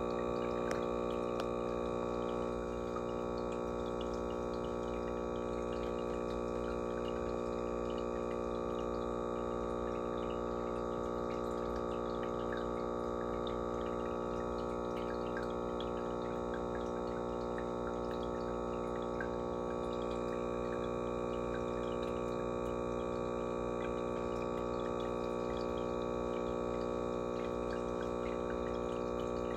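Steady electrical hum of running aquarium equipment, a motor drone with many overtones that holds unchanged, with faint scattered ticks and trickles of water over it.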